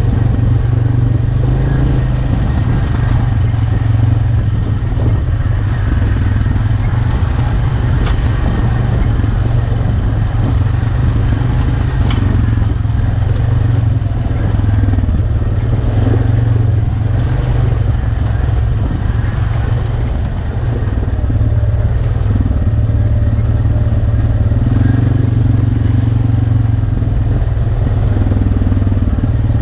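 Arctic Cat Alterra 450 ATV's single-cylinder engine running steadily while riding a rocky dirt trail, easing off briefly about two-thirds of the way through.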